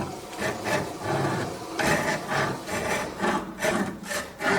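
Hand pull saw cutting in short back-and-forth strokes, a rasping rhythm that quickens in the second half.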